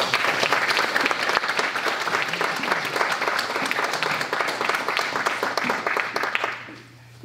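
A small group of people applauding, dense hand clapping that dies away about six and a half seconds in.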